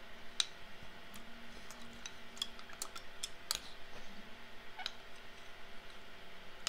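Metal spoon clicking and scraping against a bowl while ice cream is scooped and eaten: irregular sharp clicks with a faint steady hum beneath.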